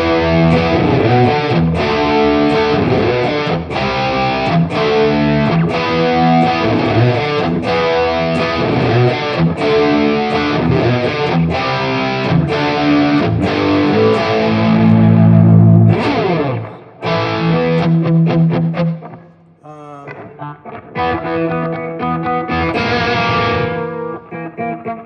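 Stratocaster-style electric guitar played through a Headrush Prime amp model with a mid-gain, distorted classic-rock 'brown sound' tone. Chords and riffs are picked for about sixteen seconds, ending on a held chord. After a short break the playing comes back quieter and then picks up again.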